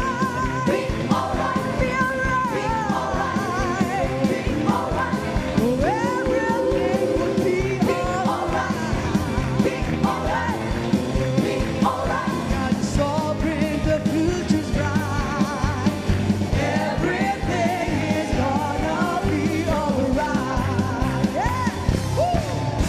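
Worship song: singing, with vocal lines that waver and glide, over a full band with a steady beat.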